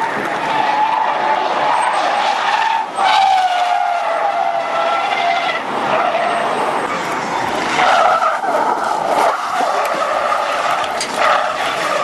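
Car tyres squealing through long high-speed drifting slides, with the car's engine running hard underneath. The squeal drops out briefly about three seconds in and starts again louder.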